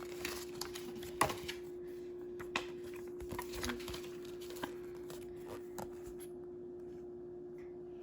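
Scattered light clicks and taps of a stack of trading cards and their booster pack being handled, the sharpest about a second in, thinning out near the end. A steady hum runs underneath.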